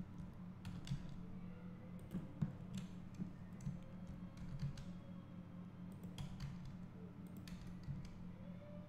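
Computer keyboard keys and mouse clicks: scattered single taps a second or so apart, over a low steady hum.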